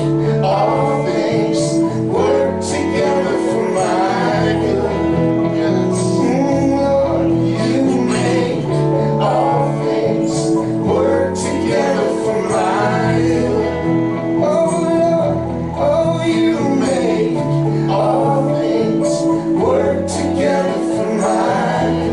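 Live worship band playing a song: guitar and a moving bass line under a voice singing the melody.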